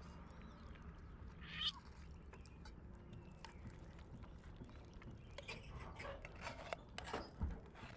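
A kitten meows once, a short high call that falls in pitch about one and a half seconds in. Faint clicks and rustles follow.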